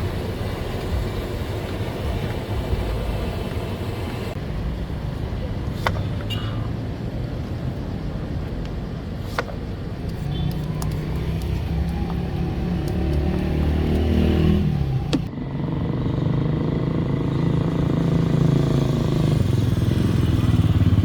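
A vehicle engine runs over a steady low rumble. Its pitch climbs, then breaks off about two-thirds of the way through before resuming, with a few sharp clicks scattered throughout.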